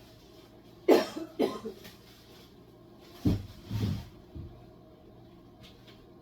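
A person coughing: two sharp coughs about a second in, then two lower, duller ones a little past halfway.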